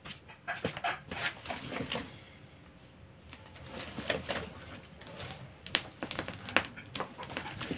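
Firewood in a wood-fired clay stove, knocking and clattering now and then as the burning sticks are pushed further into the fire.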